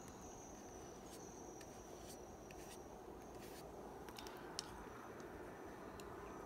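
Faint, quiet brush work on sketchbook paper, with a few soft taps, the clearest about halfway through, over a faint high steady tone.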